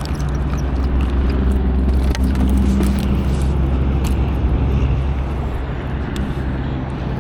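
An engine running steadily, its pitch shifting a little partway through, with a few faint clicks.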